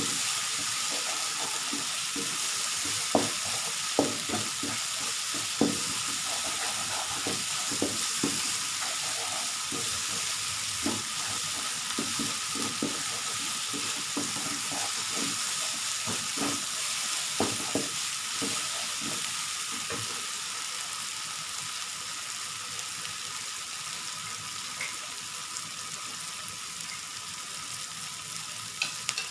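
Blended spice paste with curry powder frying in oil in a pan: a steady sizzle, stirred with frequent knocks and scrapes against the pan, most of them in the first twenty seconds. It is being sautéed until the oil separates from the paste.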